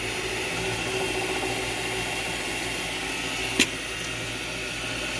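Metal lathe running under power during a facing cut, a steady hum from the motor and spindle with a higher hiss. A single sharp click about three and a half seconds in.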